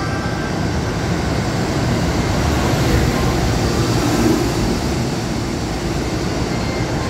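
A JR Freight EF210 electric locomotive passes close by at low speed while accelerating, its motors and wheels running loudly on the rails. The sound grows loudest as the locomotive goes by, about three to four seconds in, and then carries on steadily as its container wagons roll past.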